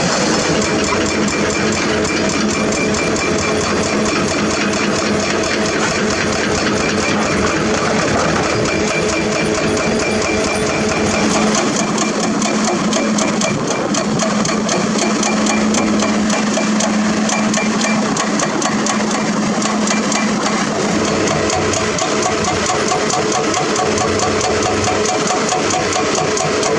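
Diesel engines of heavy construction machinery running steadily, with a fast, even clatter over a low hum.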